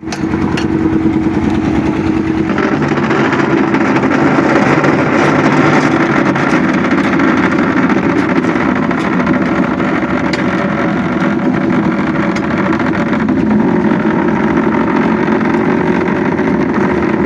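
Engine of concrete-placing machinery running steadily. Its note shifts about two and a half seconds in, then holds.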